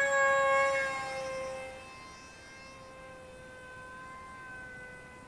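Brushless electric motor (2208 2600kv) of a Zeta Z84 flying wing spinning a 6x3 composite propeller in flight: a steady high whine, loudest in the first second or two, then fainter and even.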